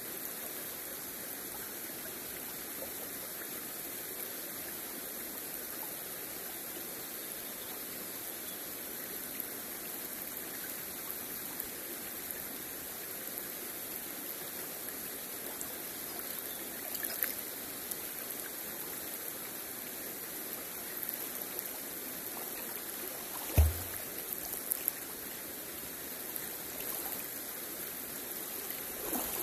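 Shallow river water running steadily over stones close to the microphone. About three-quarters of the way through comes one brief low thump, the loudest sound, with a few small splashes near the end.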